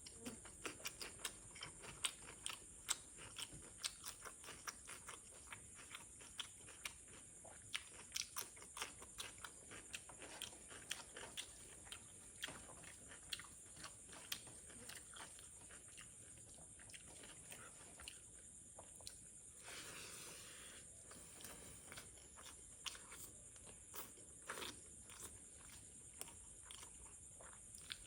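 Close-up eating sounds: a person chewing and biting food with many small crunchy, wet clicks, several a second at first and thinning out later. A brief soft rustle comes about twenty seconds in.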